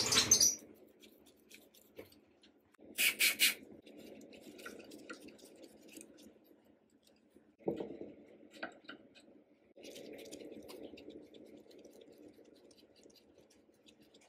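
Metal scraping, rubbing and clinking as a rusty 1891 sewing machine is taken apart by hand with a screwdriver and a pick. A clatter comes at the start, three quick sharp scrapes about three seconds in, a single knock near eight seconds, and softer steady scraping after ten seconds.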